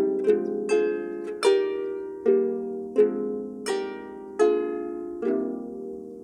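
Diatonic double harp: about nine strings plucked one after another in a slow arpeggio, each note ringing on under the next, the last plucked about five seconds in and left to fade.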